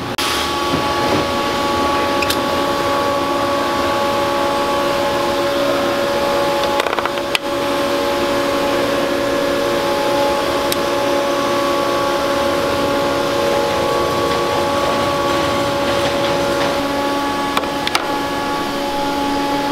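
Metal-forming press running with a steady machine hum and a whine of several steady tones. A few sharp metallic clicks come through as the punch-and-flange die is worked on aluminium sheet.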